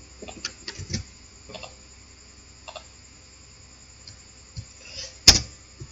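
A few faint, scattered clicks in the first few seconds, then one sharp, louder click about five seconds in: computer mouse and keyboard clicks while code is copied and pasted in an editor.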